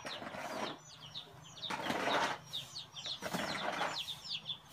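Small birds chirping in many quick high peeps, over several short bursts of rustling noise.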